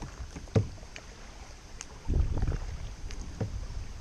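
Double-bladed kayak paddle stroking through calm flat water: irregular dips and splashes with water dripping off the blade. There is a sharp knock about half a second in and a louder low rumble about two seconds in.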